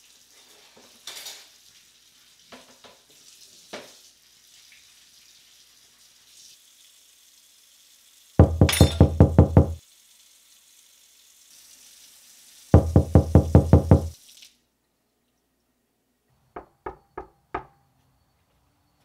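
Two loud bursts of rapid, deep pulsing, each about a second and a half long, then four knocks on a wooden door near the end.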